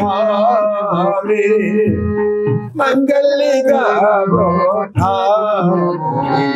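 Music: a man singing long, wavering melodic phrases over steady held instrumental notes, with brief breaks between phrases about three and five seconds in.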